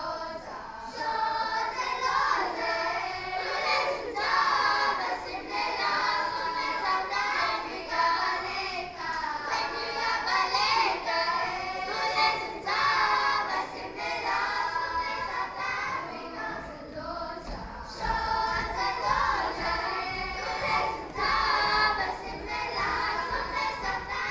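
Children's choir singing, many young voices together in continuous phrases.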